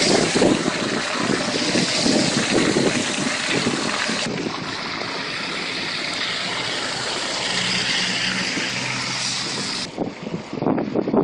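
Wind buffeting the microphone over the noise of road traffic, with a low engine hum in the second half. The sound changes abruptly about four and ten seconds in, at cuts between shots.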